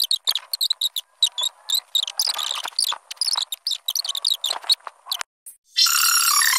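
A soundtrack played back at eight times normal speed: a fast, squeaky chatter of short high chirps. After a brief gap near the end, sped-up music with a quick, high jingling melody starts.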